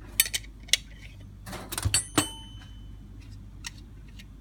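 Metal clicks and clinks of a 1-inch wrench on a Holley 94 carburetor's power valve as it is loosened and unscrewed from the carb body: a few sharp clicks in the first second, then a quick run of clicks about two seconds in ending in one louder click.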